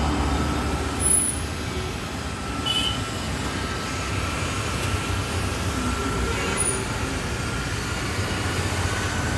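Steady low rumble of road traffic, with a faint steady whine over it and a few brief squeaks and beeps.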